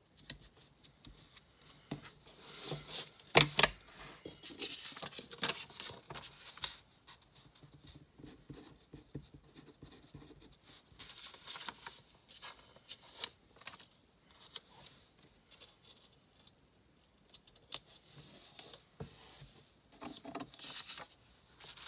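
Paper handling: a sticker sheet and planner pages rustling and sliding on a wooden desk, in uneven bursts, with a couple of sharp taps about three and a half seconds in.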